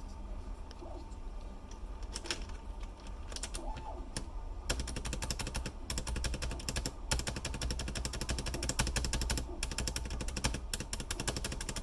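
Keys on a mechanical keyboard being typed on: a few scattered keystrokes, then rapid steady typing from about five seconds in.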